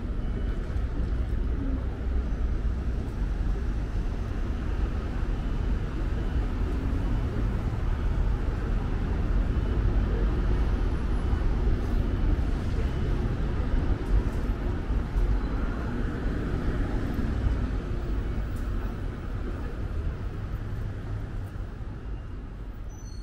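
City street ambience by a busy road: a steady rumble of car traffic passing, fading out near the end.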